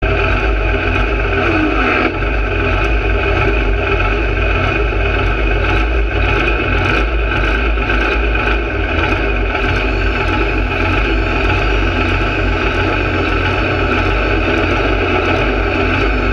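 Pulling tractor's engine running steadily, heard close up from on the tractor. The exhaust stack trails smoke, and the engine holds an even note without revving, apart from a short falling whine about two seconds in.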